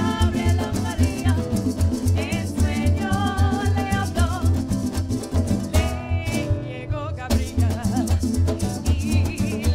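Live parang music: women's voices singing over strummed acoustic guitars and cuatro, with a steady bass beat.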